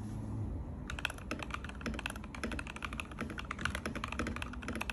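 Mechanical keyboard with 'creampaca' Frankenswitches, made of Alpaca housings and springs with NovelKeys Cream stems, being typed on. A quick run of snappy key clacks starts about a second in and keeps going.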